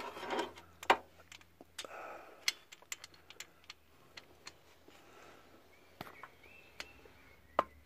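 A click-type torque wrench and socket on water-pump bolts, giving scattered single metallic clicks and light knocks a second or two apart as the bolts are brought up to 11 N·m. The loudest click comes near the end.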